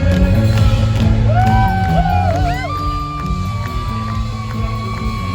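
Loud music: a bass line moving between steady low notes under a lead line that bends up and down in pitch, then holds one long note.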